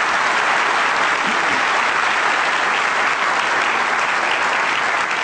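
Large seated audience applauding, a steady, dense clapping of many hands.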